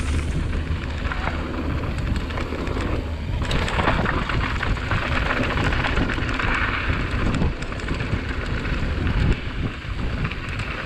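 Wind rushing over the microphone and tyres rolling over loose dirt and gravel on a fast mountain bike descent, with a steady run of small clicks and rattles from the bike.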